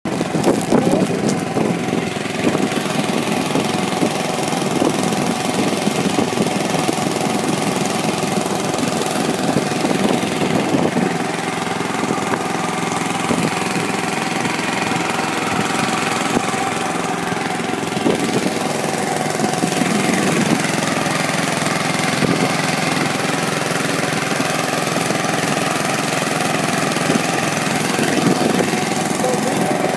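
Small wooden boat's engine running steadily under way, with a constant rush of water and wind.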